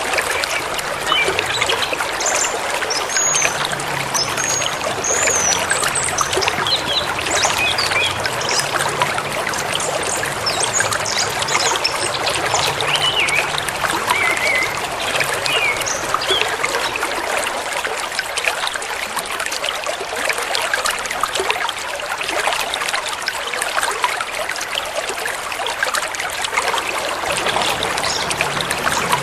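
Forest river running with a steady rush of water, with small birds chirping now and then over it, mostly in the first half.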